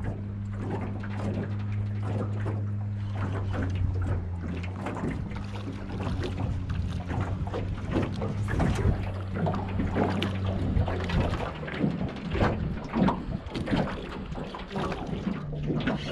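Wind and water around a small aluminium fishing boat while a catfish is played to the side: a steady low hum that stops about eleven seconds in, with a busy run of knocks and clatters in the second half.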